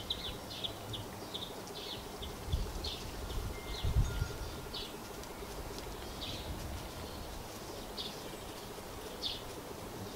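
Garden birds chirping in short, scattered calls, over a low wind rumble that surges twice, a few seconds in.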